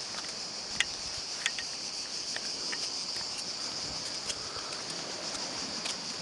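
A steady, high-pitched chorus of cicadas buzzing without a break, with a few sharp clicks scattered through it.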